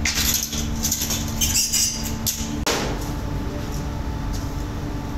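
Metal motorcycle brake shoes clinking and knocking against each other as they are handled and stacked, a quick run of clatter in the first two and a half seconds. Then the sound changes suddenly to a steadier background with a low hum and only faint clinks.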